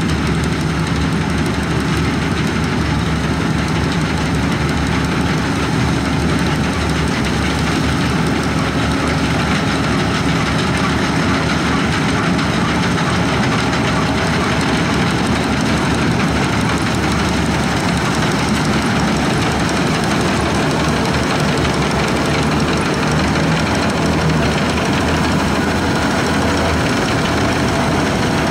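Braud 504 combine harvester running steadily as it cuts wheat: an even engine note under the dense mechanical noise of its working parts.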